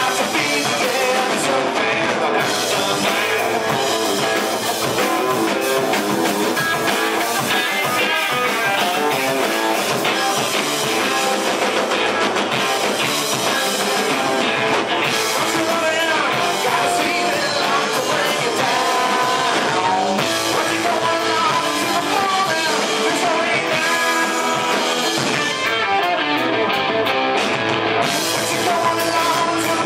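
Live rock band playing a song: guitar and drums with a singer, loud and continuous.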